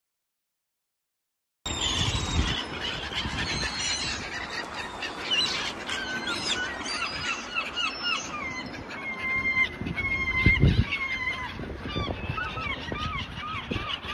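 About a second and a half of silence, then a flock of gulls calling: many short calls overlapping one another without a break.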